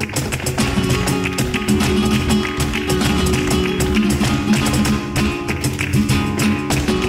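Live flamenco music: acoustic guitars playing a steady accompaniment, cut through by many sharp percussive taps.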